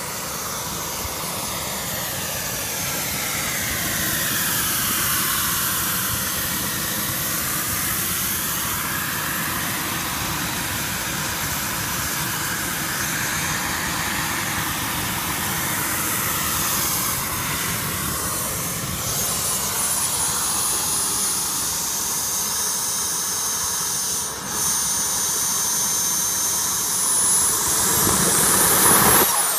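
JetCat 160 model jet turbine of a Boomerang Taurus RC jet running at idle with a steady high whine. Near the very end the turbine is cut and starts to spool down, its pitch falling.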